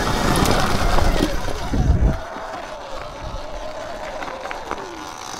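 Sur-Ron electric dirt bike being ridden. For about two seconds wind buffets the camera microphone with heavy rumble, then it drops away and the electric motor's thin whine slowly sinks in pitch.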